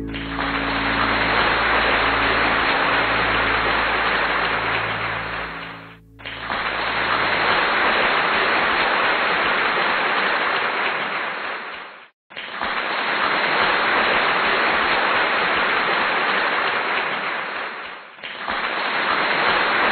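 Steady rain-like hiss, in stretches of about six seconds that each fade briefly to a dropout before starting again. A faint low hum fades out in the first several seconds.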